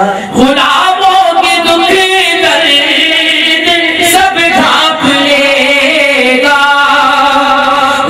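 Devotional singing at a Sufi shrine: voices chanting a long, gliding melodic line.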